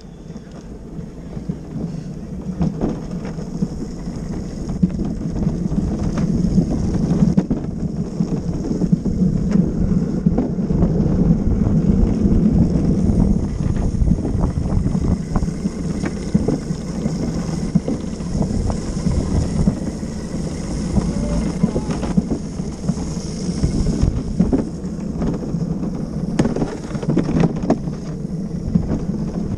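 Luge cart's wheels rumbling and clattering over a concrete track, with wind buffeting the microphone. The rumble builds over the first few seconds as the cart picks up speed, then holds steady, broken by frequent small knocks from bumps in the track.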